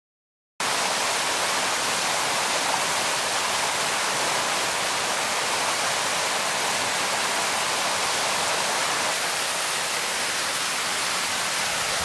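Fast-flowing stream water rushing over a small waterfall: a steady, even hiss of water that cuts in suddenly about half a second in.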